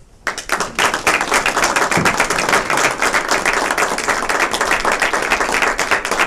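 A small group of people applauding, breaking out suddenly just after the start and keeping up a steady clatter of hand claps.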